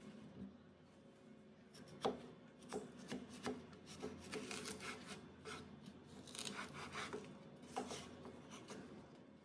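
Chef's knife cutting lengthwise through a cucumber on a bamboo cutting board: a run of short cutting strokes and knife taps on the board, starting about two seconds in. The sharpest taps come about two seconds in and near the end.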